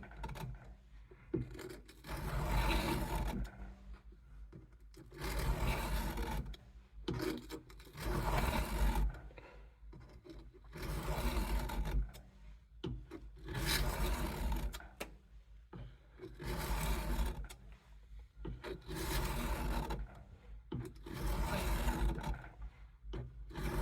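A Case USMC knife blade drawn in slow, regular strokes across a lubricated diamond sharpening stone, a rasping scrape about once every two to two and a half seconds.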